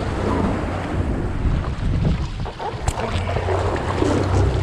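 Wind buffeting the microphone over the boat's outboard motors running, with water splashing alongside the hull. A single sharp knock about three seconds in.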